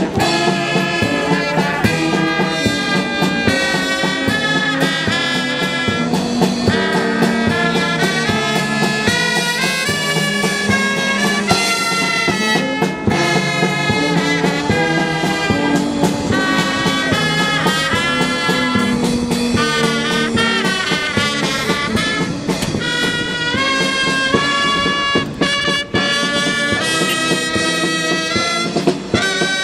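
Instrumental music.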